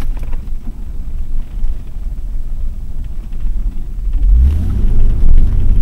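Mercedes-Benz W126 on the move, heard from inside the cabin: a steady low engine and road rumble that grows louder about four seconds in.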